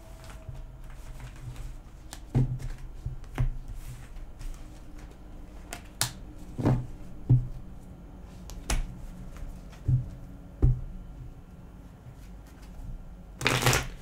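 Tarot cards being gathered from the table and shuffled by hand, with scattered short knocks of the cards against the table. Near the end comes a louder, longer rustle of shuffling.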